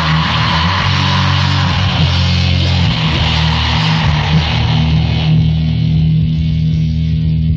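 Heavy metal band with distorted electric guitar and bass on a 1987 demo recording. About five seconds in, the dense upper racket falls away, leaving low guitar and bass notes ringing on.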